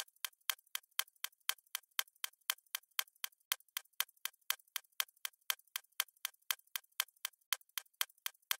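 Steady, even ticking like a clock, about four ticks a second, added as a sound effect.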